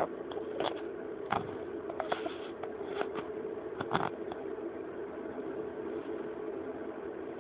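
A steady machine hum, like a fan, with several short, sharp sounds in the first four seconds.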